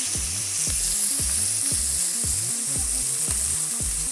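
Sliced onions frying in hot cooking oil in a wok, with a steady high sizzle as a spatula stirs them.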